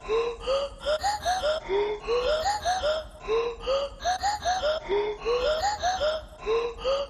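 Intro music: a quick melodic phrase of short notes, about four a second, played twice over.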